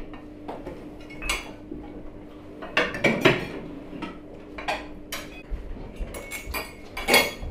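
Forks and spoons clinking against plates as a table of people eat: scattered separate clinks, the loudest about three seconds in and near the end.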